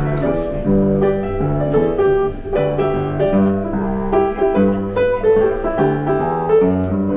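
Piano played live: a flowing melody over held bass notes, with the notes and chords changing continuously.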